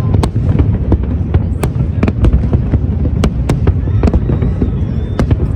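Fireworks display going off in a rapid, irregular string of sharp bangs over a continuous low rumble.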